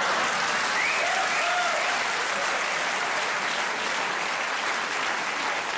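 Theatre audience applauding steadily, with a few cheers from the crowd about a second in.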